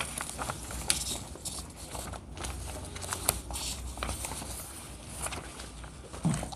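Sheets of paper rustling and crackling as several people handle and hold up documents, with scattered sharp clicks, over a low steady hum.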